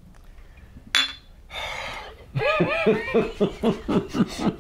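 Glass bottles clink together once in a toast. Then comes a rapid run of about eight short bursts of laughter, each rising and falling in pitch.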